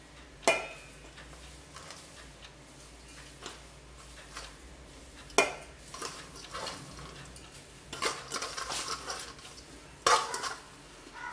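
Stainless-steel bowls clinking and scraping as chopped coriander is tipped and scooped by hand from one bowl into another. Sharp clinks come about half a second in, around five seconds in and around ten seconds in, with a run of softer clatter around eight to nine seconds.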